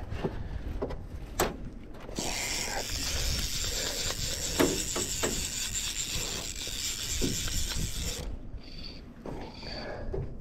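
Fly reel's click-and-pawl ratchet buzzing while a hooked fish is played on the line. There is one continuous run of about six seconds that starts abruptly about two seconds in and stops sharply.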